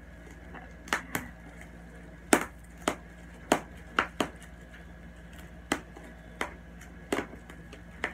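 Bubble wrap being popped by hand: about a dozen sharp pops at irregular intervals.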